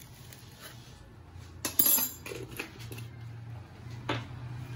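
A spoon clinking and tapping against a bowl as coffee powder is tipped in: a few light taps, the loudest just under two seconds in, over a low steady hum.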